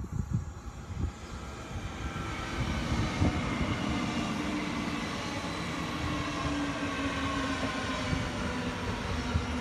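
DB class 440 (Alstom Coradia Continental) electric multiple unit running past close by. It has a steady electric hum and higher whines that slowly fall in pitch, and it grows louder during the first couple of seconds as it comes near.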